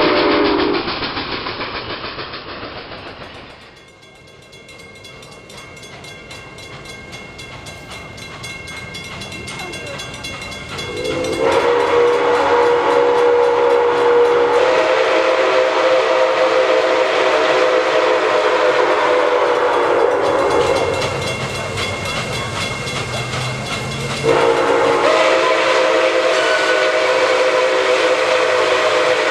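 Nickel Plate Road 765, a 2-8-4 Berkshire steam locomotive, blowing its chime whistle in two long blasts as it approaches a grade crossing: a chord of several tones sounding together. The first blast starts about a third of the way in and lasts about nine seconds, and the second starts near the end.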